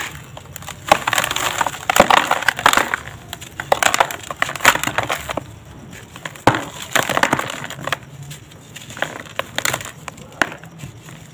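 A dry block of sand cement crumbled and crushed between bare hands over a plastic tub: a dense run of crisp crunches and crackles, heaviest in the first few seconds and again about six and a half seconds in.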